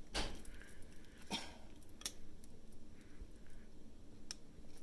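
Handling noise of a soft plastic bubble CPAP nasal prong interface being folded and squeezed between the fingers: a few faint clicks and rustles.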